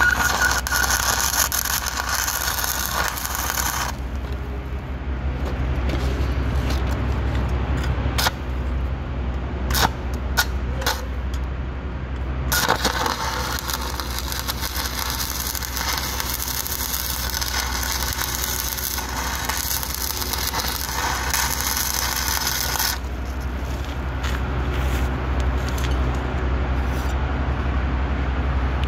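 Stick-welding arc from a 5/32 in. Lincoln 6011 rod at about 101 amps, crackling and sizzling steadily for about four seconds. Then comes a stretch of scattered clicks and taps, and the arc burns again for about ten seconds before it cuts off. A steady low hum runs underneath.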